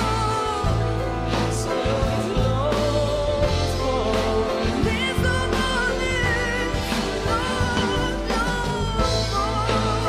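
Live pop duet: a woman and a man singing into microphones with a live band, the voices held with vibrato over a steady bass.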